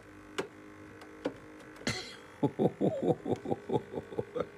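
Noisy laptop cooling fan in an HP Pavilion dv6: a steady faint hum with a few sharp clicks, then about halfway through a quick run of short strokes, each falling in pitch, about six a second. The owner thinks the fan is a little out of balance.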